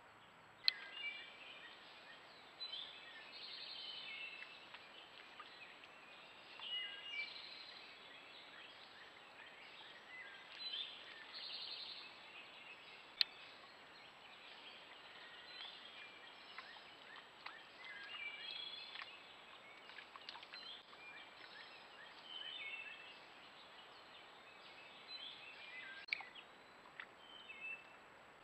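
Birds singing and chirping in many short repeated phrases over a steady background hiss, with a thin steady high tone underneath. Two sharp clicks stand out, one just under a second in and one about halfway through.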